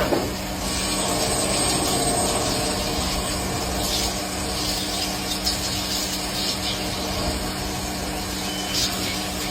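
CNC machine tool running: a steady motor hum with an even hiss over it and a few faint clicks.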